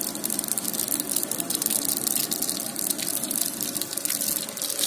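Hot cooking oil sizzling and crackling steadily in a large aluminium pot over a fire.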